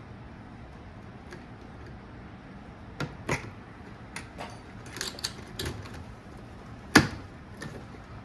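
Irregular sharp clicks and knocks of small hard objects being handled, starting about three seconds in, with one louder knock near the end, over a steady low background hiss.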